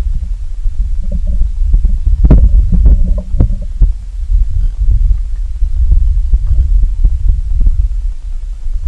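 Low rumble on the microphone that rises and falls unevenly, with one sharp knock about two seconds in.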